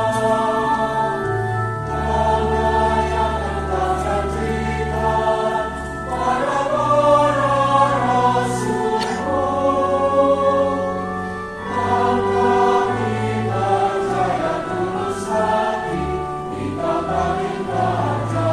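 Church choir singing a hymn in several parts, over held low bass notes from an accompanying instrument. The voices move in long sustained phrases, with brief dips between phrases.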